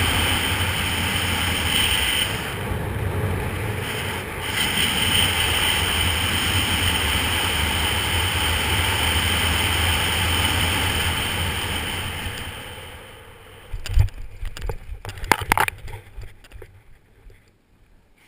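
Wind rushing over a helmet-mounted GoPro as a skydiver descends under an open parachute canopy, dying away as the canopy slows for landing. About fourteen seconds in, a thump followed by a few sharp knocks and rustles as the jumper touches down on the grass.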